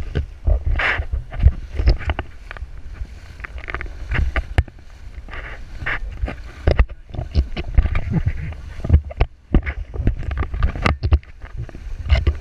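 Inflatable banana boat being towed fast across choppy water: wind buffeting the camera microphone as a heavy low rumble, with many irregular sharp slaps and splashes of water against the tube.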